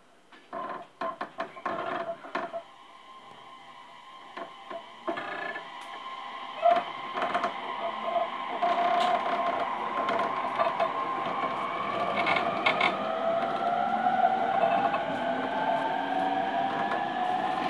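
Inside a motor car of an equipment-renewed E231-series electric train pulling away from a station. A run of sharp clicks and knocks comes in the first couple of seconds. From about five seconds in, the traction inverter and motors whine, several tones rising slowly in pitch and growing louder as the train accelerates, over running noise from the rails.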